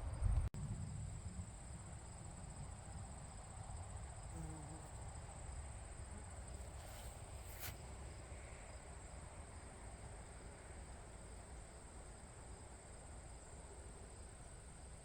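Crickets chirping in a steady, faint high-pitched trill, over a low rumble, with a sharp click about half a second in.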